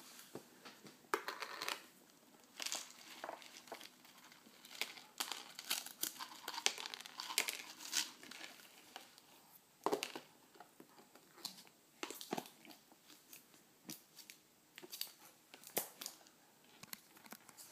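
Irregular light taps, clicks and scratches of a baby's hands on a plastic high-chair tray, picking at small dry puffs, with one sharper knock about ten seconds in.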